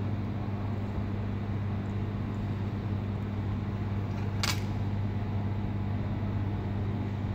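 Steady low machine hum at an even level, with a single sharp click about four and a half seconds in.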